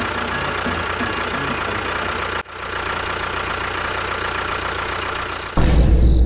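Small engine sound idling with a steady low pulsing; it cuts out for an instant about two and a half seconds in. Short high beeps then repeat, coming faster and faster, and a loud low rumble comes in just before the end.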